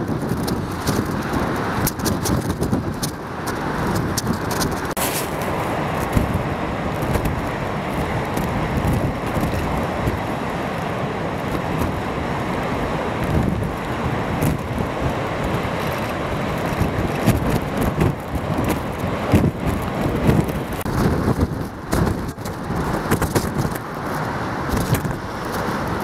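Storm wind and heavy breaking surf: a continuous rushing noise that surges and falls back unevenly.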